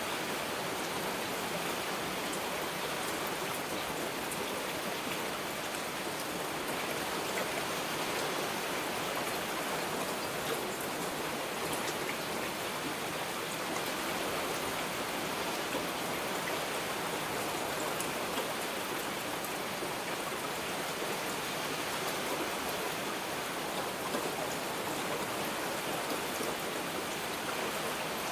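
Heavy rain falling steadily, an even hiss with scattered ticks of individual drops.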